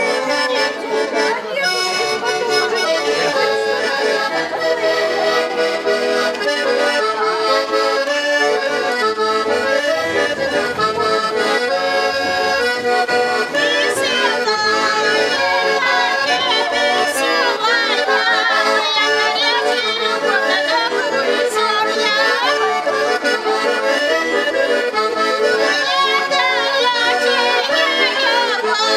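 Russian garmon, a button accordion, playing a folk tune with melody and chords sounding together without a break.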